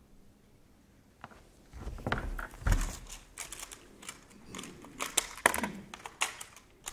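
A low thud of body movement on a wooden stage about two seconds in, then a run of irregular sharp clicks as the keys of a portable typewriter are struck.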